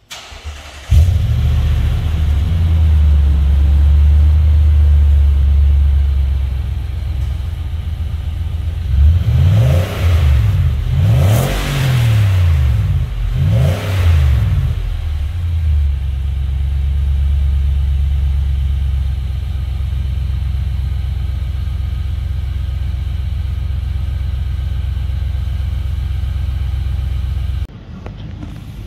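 Nissan Y62 Patrol's 5.6-litre petrol V8 running through a Redback Extreme Duty 3-inch stainless cat-back exhaust with the oval muffler, the quietest of the range's three muffler options, which gives a subtle V8 note at the tailpipe. It idles steadily, is revved up and down several times in quick succession in the middle, then settles back to idle. Near the end the sound becomes quieter.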